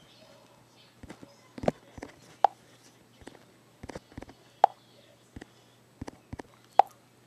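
A series of short clicks and pops, with a louder pop carrying a brief tone about every two seconds, over a faint steady low hum.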